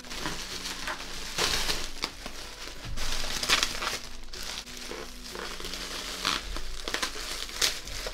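A bag crinkling and rustling in irregular bursts as a toy mallet is pulled out of it.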